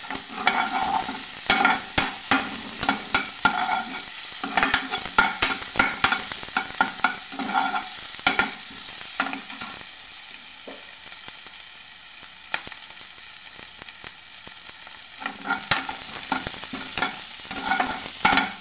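Spatula stirring and scraping chopped onions and garlic frying in desi ghee in a pan, over a steady sizzle. The scraping pauses for a few seconds in the middle, leaving a fainter sizzle, then starts again.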